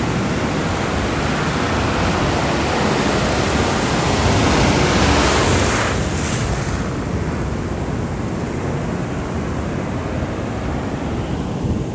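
Ocean surf: the rush of waves builds to a breaking wave about five seconds in, then washes back and eases off.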